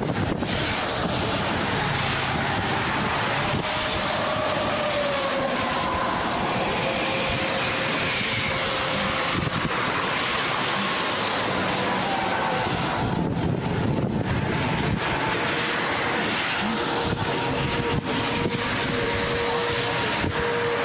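Strong wind buffeting the microphone: a steady rushing noise, with faint, slowly wavering tones underneath.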